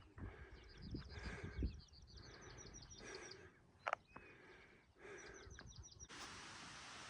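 A small songbird singing a fast, high trill, repeated in short phrases every second or two, with soft low thuds in the first couple of seconds. About six seconds in, a steady hiss takes over.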